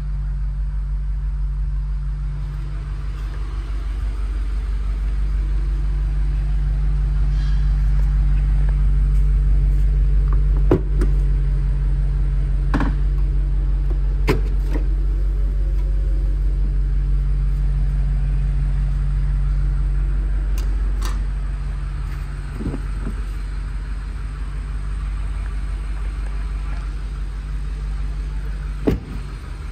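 A 2023 BMW X5 M's twin-turbo engine idling with a steady low rumble, and a handful of sharp clicks and knocks over it, the loudest about eleven seconds in and near the end.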